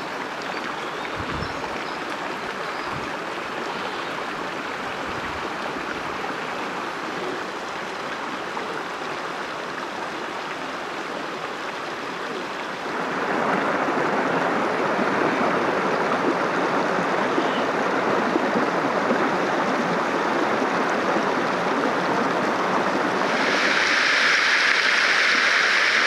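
Water pouring and splattering in many thin streams from a moss-covered tufa overhang: a steady rushing and splashing. It grows louder about halfway through and brighter and louder again near the end.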